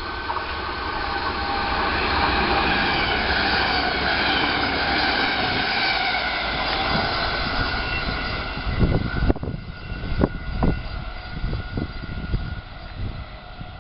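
NS VIRM double-deck electric intercity train passing through a station at speed: a rushing noise with a steady whine that builds over the first couple of seconds as it approaches and stays loud while the carriages go by. About nine seconds in it gives way to irregular low thumps.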